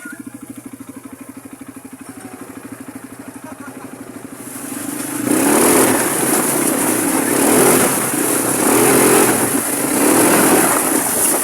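Quad bike (ATV) engine idling with an even, rapid pulse, then opened up about five seconds in, running much louder and swelling and easing as the throttle is worked.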